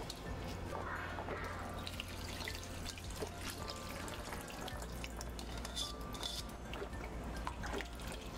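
Water dripping and trickling in a kitchen, with scattered small splashes and clicks, as the rice is readied in water for cooking.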